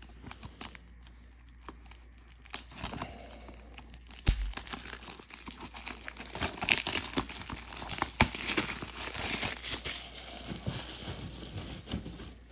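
Plastic wrap crinkling and tearing as a DVD box is unwrapped by hand. It starts about four seconds in, after a few light handling clicks, and runs in dense crackly rustles until just before the end.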